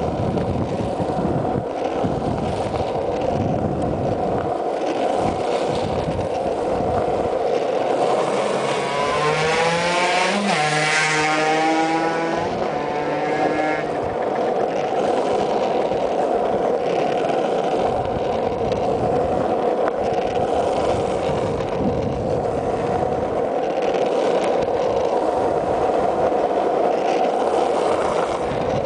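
Steady rolling roar of freebord wheels on asphalt during a downhill run. About eight seconds in, a pitched hum climbs in pitch and then falls away over some six seconds.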